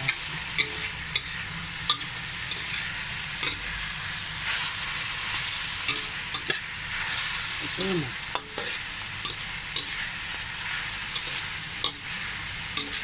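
Beef and vegetables sizzling in a hot wok while a metal spatula stirs and tosses them, knocking and scraping against the pan in irregular clicks over a steady frying hiss.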